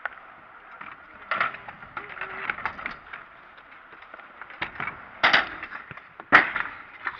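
Freestyle scooter rolling on a concrete skatepark, with sharp clacks and bangs from the wheels and deck hitting the ground and ramp edges at irregular moments. The loudest, sharpest bang comes about six seconds in, as the airborne rider and scooter come down.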